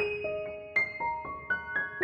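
Background piano music: single notes struck one after another, each ringing on and fading, in a slow, gentle melody.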